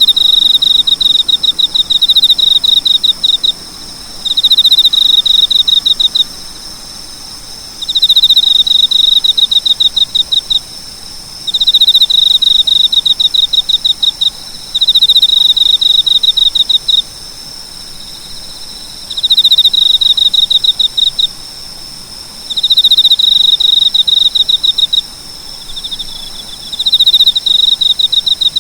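Cricket chirping in trains of rapid, high-pitched pulses, each train lasting two to three seconds and separated by short pauses, repeated about eight times over a steady high buzz.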